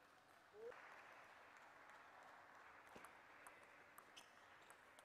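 Faint applause from a small crowd in a large hall, starting suddenly about a second in and lasting several seconds after a point is won. Near the end come a few sharp ticks of a table tennis ball being played.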